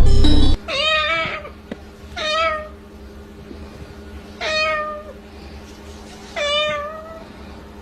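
Four drawn-out meows, each lasting under a second, spaced a second or two apart.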